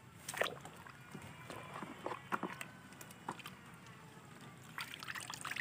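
Quiet splashing and sloshing of soapy water in a metal basin as a muddy toy car is swished about and scrubbed in it, with scattered small clicks and knocks.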